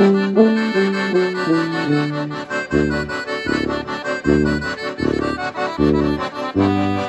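Two piano accordions playing an instrumental tune with a tuba on the bass. Held melody notes step along for the first few seconds, then a steady, regular bass beat comes in under the accordion chords.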